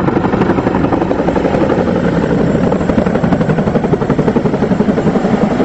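Military helicopter in flight, heard from inside the cabin: a loud, steady rotor and engine noise with a fast, even flutter.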